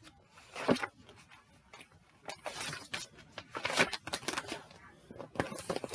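A paper picture book being handled and opened, with scattered rustles and soft taps as the cover and pages are turned.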